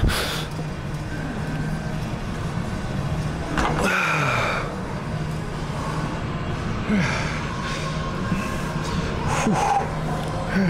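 A man breathing hard after a set of machine chest presses, with several puffing exhales, over a steady low hum.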